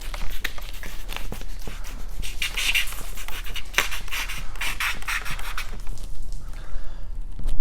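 Rubbing and scraping as paint protection film is worked onto a car bumper, in a series of short strokes with scattered clicks, over a steady low hum.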